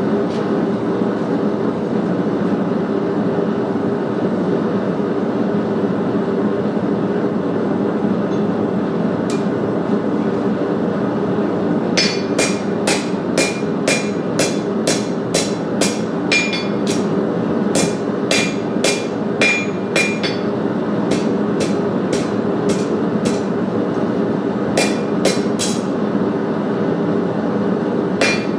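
Blacksmith's hammer striking steel on an anvil in runs of blows about two a second, each with a bright ring, with short pauses between runs. The blows begin after a long stretch of only a steady rushing rumble, which carries on underneath them.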